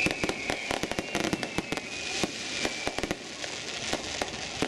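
Aerial fireworks going off: a rapid, irregular string of sharp pops and crackles, with a thin whistle sliding slowly down in pitch that fades out about three seconds in.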